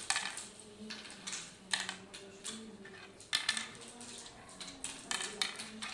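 Oware seeds clicking and clattering against the wooden board and each other as a player picks them up and sows them pit by pit, in a string of irregular clicks.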